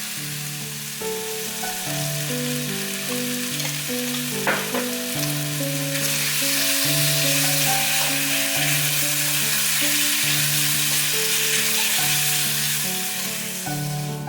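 Food sizzling as it fries in a pan, growing louder about halfway through, with a single knock of a utensil about four seconds in. Background music with sustained notes plays underneath.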